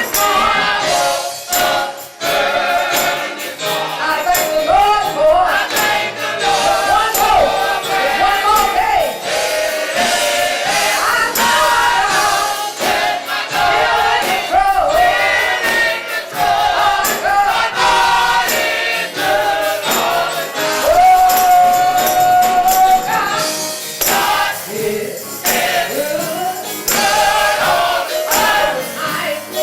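Gospel choir singing over a band, with frequent bright percussion hits. A long held note comes about three-quarters of the way through.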